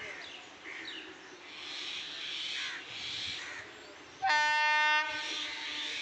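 Indian Railways express locomotive horn sounding one short blast of under a second, about four seconds in, as the train approaches. Crows cawing before it.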